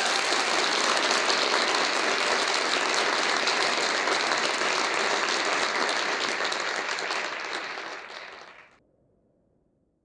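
A large audience applauding steadily after a talk, fading out about eight to nine seconds in.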